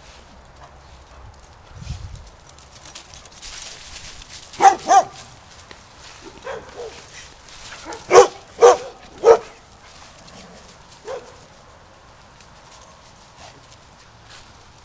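Dog barking during play: two sharp barks about five seconds in, then three louder barks in quick succession a few seconds later, with a few fainter yips in between.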